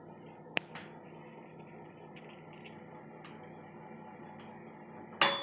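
Electric oven running with a low steady hum, with one small click about half a second in. Near the end comes a sharp metallic ding that keeps ringing.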